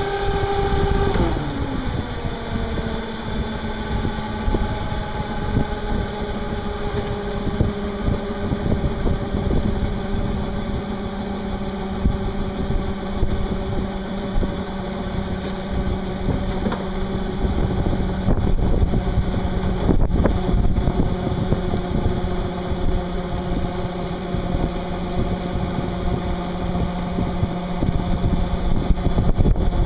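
Electric boat motors running under way: a steady motor whine over the rush of water and wind. About a second in the whine drops in pitch as the motor slows, then holds steady.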